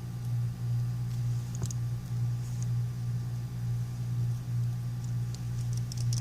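A steady low hum throughout, with a few faint small clicks and taps of small parts and tools being handled on a phone, more of them near the end.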